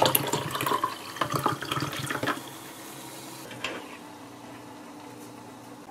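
Fizzy green grape ade poured over ice into a glass, the pouring stopping about two seconds in, then the drink fizzing and crackling softly.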